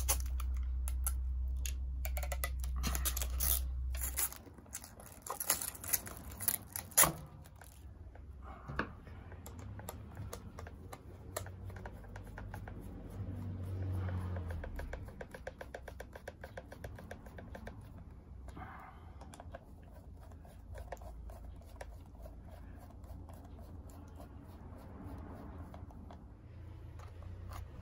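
Small clicks, taps and scratches of hands fitting potentiometers, switch and wiring into a Stratocaster pickguard, with a few sharper clicks around five to seven seconds in. A low hum sounds under it for the first four seconds.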